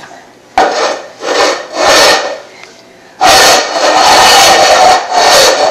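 Loud rasping noise in three short bursts, then a long sustained stretch from about three seconds in.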